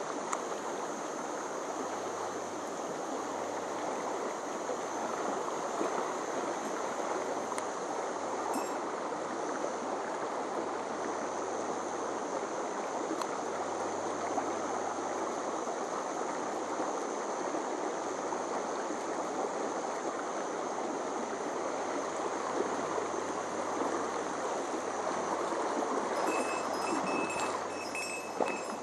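A small mountain stream rushing steadily.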